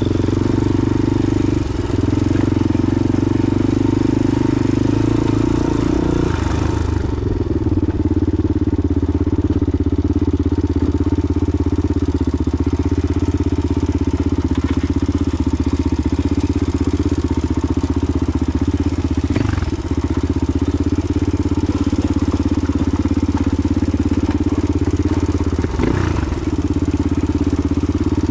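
Off-road vehicle engine, a dirt bike or ATV, running loud and steady at a nearly constant pitch, with a brief dip about six seconds in and short dips twice later on.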